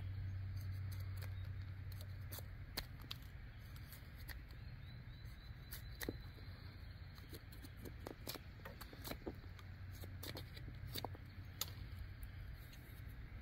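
Survive Knives GSO 4.5 Bushcraft, a Scandi-ground knife, whittling a thin stick: small irregular clicks and scrapes as the blade slices off shavings. Under them is a faint low hum that fades over the first few seconds.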